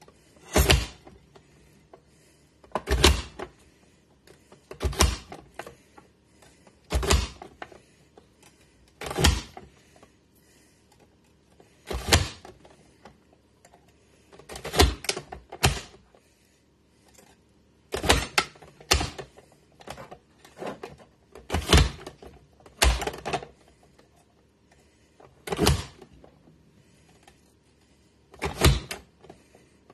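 A push-down vegetable chopper's hinged lid pressed down again and again, forcing onion through its grid blade, each press a sharp knock. The presses come about every one to two seconds, now and then two or three in quick succession.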